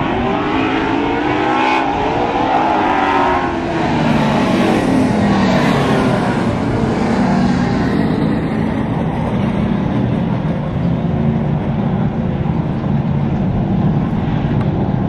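V8 engines of Outlaw Super Late Model stock cars running on the oval. In the first few seconds several engines pass, their pitch sliding up and down across one another, before settling into a steady engine drone.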